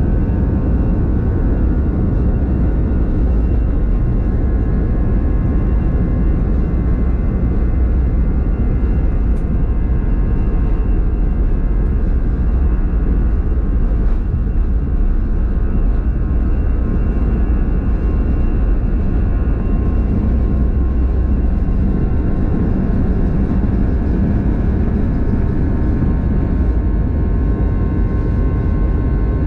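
Airbus A320 jet engines at takeoff thrust, heard from inside the cabin: a steady, loud low rumble with several high steady whine tones above it, carrying through the takeoff roll, rotation and initial climb.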